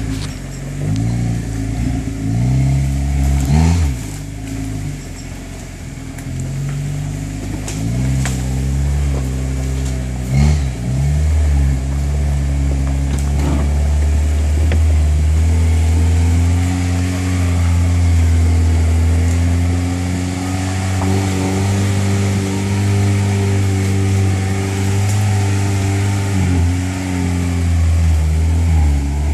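Jeep Wrangler TJ engine pulling at low revs while towing another truck on a strap, its pitch rising and falling with the throttle. There are a few sharp knocks in the first eleven seconds or so.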